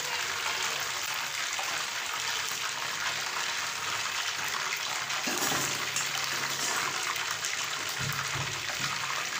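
Masala-coated whole chickens deep-frying in hot oil: a steady, dense sizzle that holds without a break.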